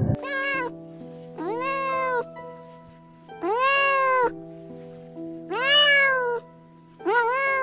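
A cat meowing repeatedly: five loud, drawn-out meows, each rising then falling in pitch, over background music with long held notes.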